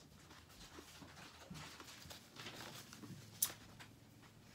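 Quiet eating: faint chewing and soft clicks of a metal fork against a ceramic bowl, with one sharper clink about three and a half seconds in.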